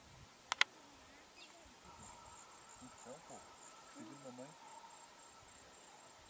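Faint, high, pulsing insect calls in open scrubland, with two sharp clicks about half a second in.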